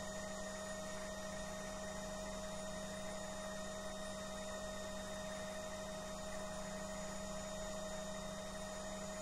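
Bell 505 helicopter's cockpit noise during a hover taxi: a faint, steady hum with a few fixed whining tones that neither rise nor fall.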